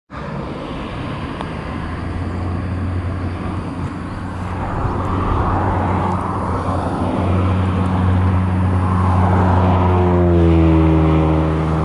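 A motor vehicle approaches, its engine growing steadily louder over several seconds, then passes with a falling pitch near the end.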